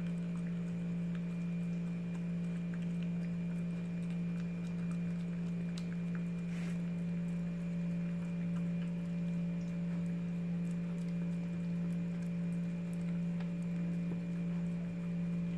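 A steady low electrical hum, with faint scattered soft clicks of a dog licking and chewing durian flesh.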